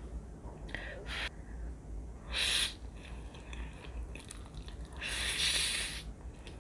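Close-miked eating of instant ramen noodles: loud breathy slurps as the noodles are drawn into the mouth, a short one about two and a half seconds in and a longer one around five seconds.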